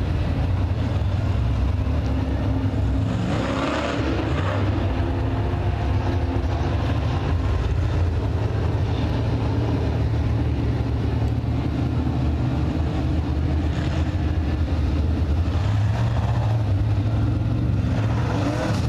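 Several 602 crate-engine dirt-track race cars, GM small-block V8s, running hot laps in a continuous engine drone. The drone swells a few times as the cars come around, most strongly about three to four seconds in.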